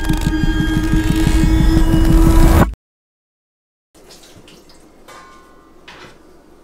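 Dark film-score drone with a fast throbbing pulse, swelling in loudness and cutting off abruptly a little under three seconds in. After a second of silence comes faint kitchen room tone with a few light clinks of dishes.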